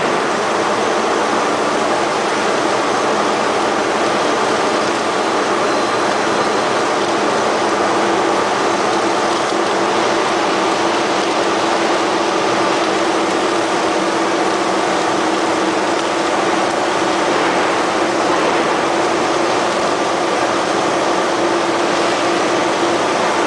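Radial-axial ring rolling mill running as it rolls a red-hot steel ring: a loud, steady machine noise with a constant hum, no hammer blows.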